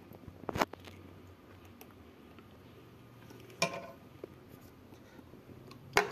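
A few short clinks of a utensil against a porcelain plate as thick apricot jam is poured out, the loudest about half a second in, over quiet room tone with a faint low hum.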